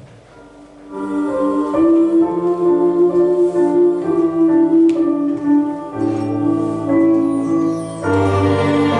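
Instrumental backing track of a ballad starting about a second in: slow, sustained chords, with a low bass note joining around six seconds and a fuller chord near the end.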